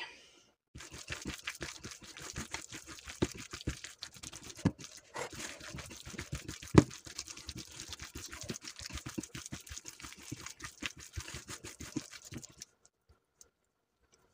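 Minced meat with egg, salt and pepper being kneaded by hand in an enamel bowl: a dense run of irregular wet squelches and small slaps, the meatball mixture being worked together. It stops shortly before the end.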